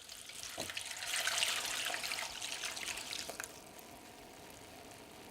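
Hot water poured into a bowl over dry ice, splashing and beginning to bubble. It builds up over the first second and dies down to a faint hiss about three and a half seconds in.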